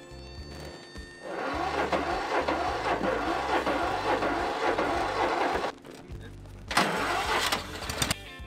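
Riding lawn mower's small engine starting and running for about four seconds before cutting off abruptly, then a second shorter run near the end, with a background music bass beat underneath.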